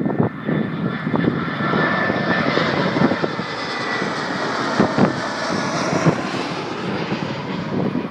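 An airliner coming in to land passes low overhead. The engine noise swells, with a thin whine over it, is loudest midway and then eases off, while wind buffets the microphone.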